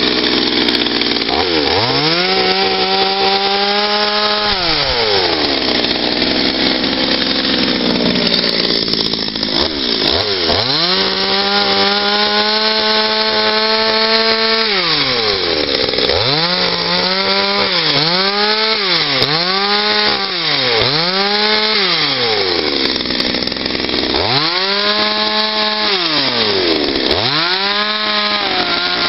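Patriot two-stroke gasoline chainsaw carving wood. The engine repeatedly revs up to full speed, holds for a few seconds of cutting and drops back toward idle, with a run of about four quick short throttle blips midway.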